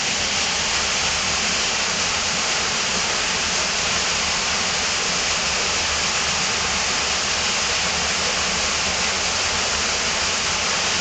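Waterfall in a cave: falling water rushing, a continuous even hiss that holds steady throughout.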